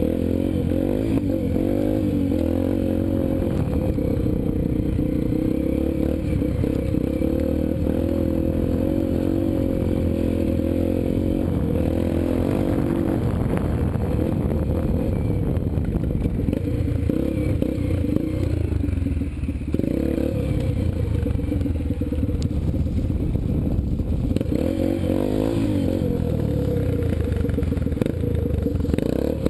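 Yamaha TT-R125LE dirt bike's single-cylinder four-stroke engine running under load on a rough trail, as heard from the rider's helmet, its pitch rising and falling with the throttle. The revs drop briefly about two-thirds through, then pick up again.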